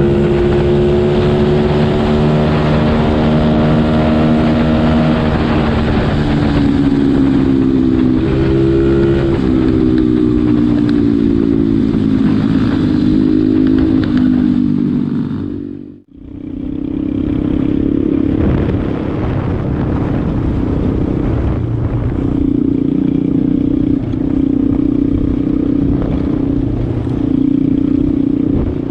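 Pit bike engine running, its pitch drifting slowly down with small steps in revs over the first half. The sound dips out briefly about sixteen seconds in, then the engine carries on at steadier revs.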